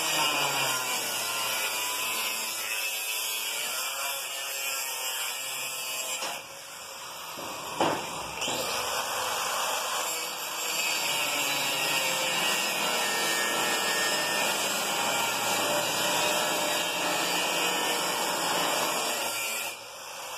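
Angle grinder cutting into the end of a steel tube, running steadily under load. It eases off between about six and eight seconds in, with a sharp knock, then cuts steadily again.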